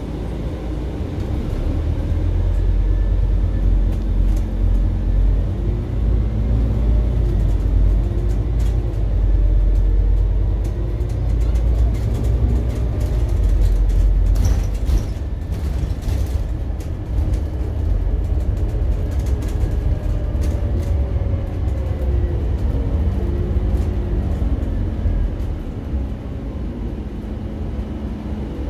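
Scania N280UD compressed-biogas double-decker bus heard on board while under way: a deep engine rumble with the drivetrain's pitch rising and falling as the bus pulls away and slows. Body rattles and clicks come through about halfway.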